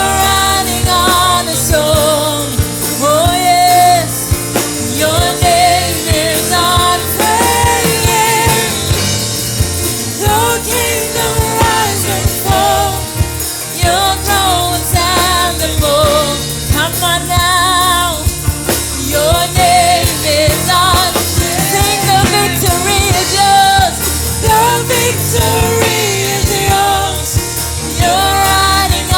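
Worship song: voices singing a melody over band accompaniment with a steady beat.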